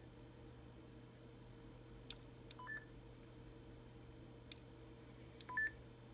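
Hytera MD785 mobile radio giving faint short two-tone beeps, a lower note stepping up to a higher one, twice about three seconds apart, with soft clicks between them over a steady low hum. The radio keeps making this sound even with its volume at zero.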